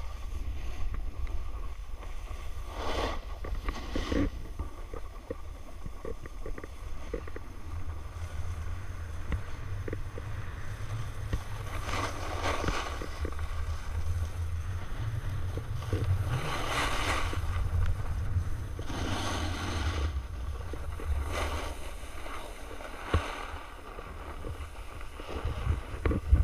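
Wind rumbling on the microphone of a camera carried on a selfie stick during a ski run, with the hiss of skis scraping over packed snow swelling up on turns every few seconds.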